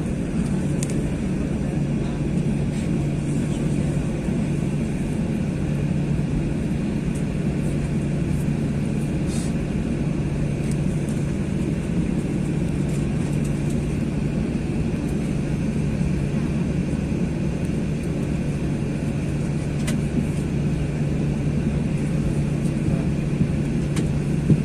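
Steady cabin noise of a Boeing 737-800 taxiing, heard from inside the cabin: its CFM56 engines at low taxi power and the air-conditioning packs make an even drone with a low hum, and a few faint ticks.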